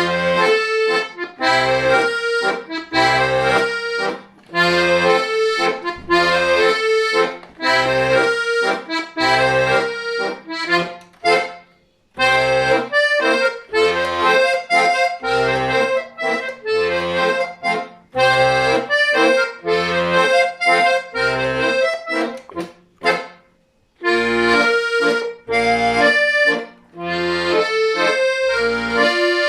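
Solo accordion playing a dance tune: low bass notes on a regular beat under the melody and chords, with two short breaks between phrases, about twelve and twenty-four seconds in.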